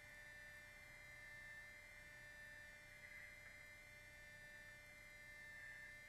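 Near silence: a faint steady hum with a thin high whine that holds unchanged throughout.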